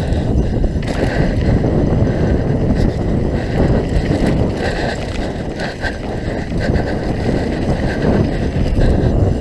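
Wind buffeting a helmet camera's microphone on a fast downhill mountain-bike descent, a loud steady rumble, with the knocks and rattles of the bike running over a rough dirt trail.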